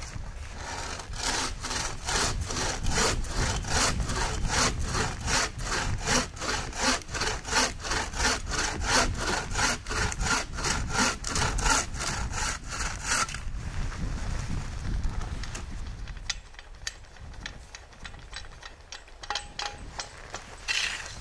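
Hand saw cutting through wood with steady back-and-forth strokes, about three a second; over the last third the strokes turn lighter and quieter.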